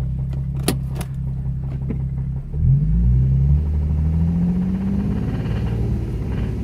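Nissan 350Z V6 engine idling, then revved up about two and a half seconds in and held at raised revs. It has a spun bearing, which has turned an earlier tick into a full-blown knock.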